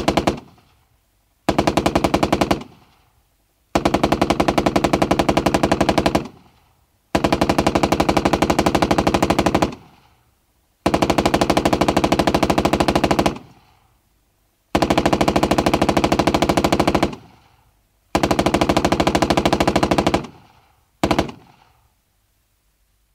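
7.62mm tank machine gun firing in bursts, recorded from outside the tank. A burst is cut off just at the start, then six sustained bursts of about one to two and a half seconds follow, about a second apart, with a brief final burst near the end. Each burst trails off in an echo.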